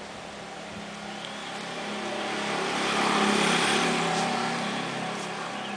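A motor vehicle passing by, its engine and tyre noise growing louder to a peak about three seconds in and then fading away.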